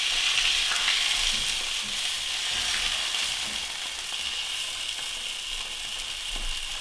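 Chicken breasts sizzling steadily in hot oil in a frying pan on a gas burner, easing a little about four seconds in, with a few soft knocks of metal tongs against the pan as the pieces are turned.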